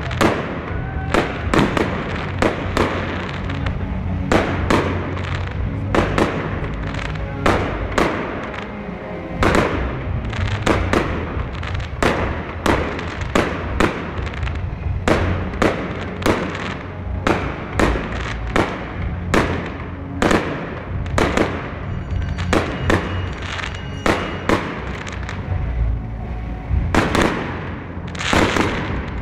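Aerial fireworks display: shells bursting in an irregular run of sharp bangs, often more than one a second, over a steady low rumble, with a denser flurry of bursts near the end.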